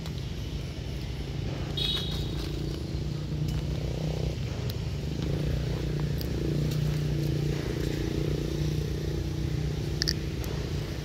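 A steady low motor hum, like an engine running, with a couple of brief high chirps about two seconds in and near the end.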